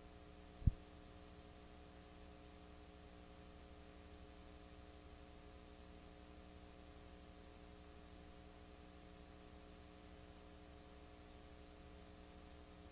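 Faint steady electrical hum from blank videotape playback, with a single short low thump just under a second in.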